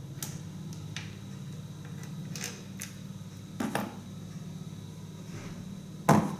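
Scattered clinks and knocks of metal engine parts being handled and set down, the loudest just before the end, over a steady low hum.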